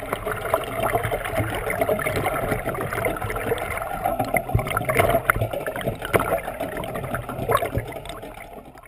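Rushing, gurgling water with many small clicks and knocks, starting and stopping abruptly.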